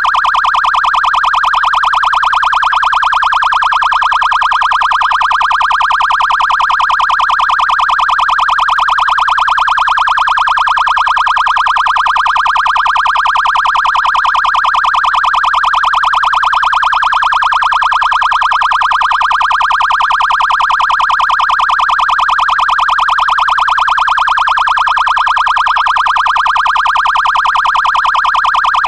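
Police car siren on the Code 3 Hyper Yelp tone: a loud, unbroken wail that sweeps up and down very rapidly and evenly.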